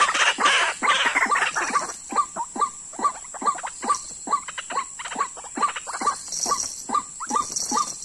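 White-breasted waterhen calls: a rapid run of short rising notes, repeated about two to three times a second, denser and harsher in the first two seconds. A steady high-pitched tone runs underneath.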